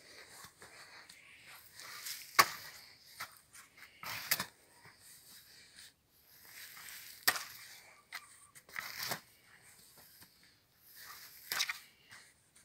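Steel spade digging into clumpy, manure-rich soil: a series of crunching scrapes as the blade is pushed in and the clods are lifted and turned, with two sharp clicks, about two seconds in and about seven seconds in.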